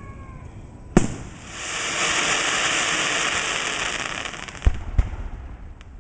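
Fireworks: a brief whistle, then a sharp bang about a second in, followed by a few seconds of dense crackling hiss and two more sharp pops near the end.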